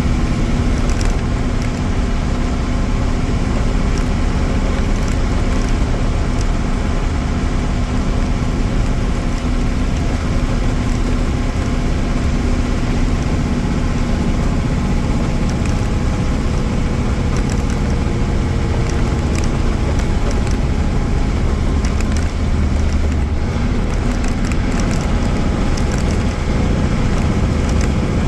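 Mercedes-Benz OM-366A turbocharged inline-six diesel of an OF-1318 bus running steadily, its note easing slightly lower about halfway through, with light ticks and rattles over it.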